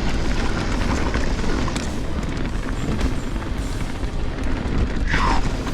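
Mountain bike descending a dirt trail: steady low wind rumble on the camera microphone mixed with tyre and drivetrain rattle and scattered clicks.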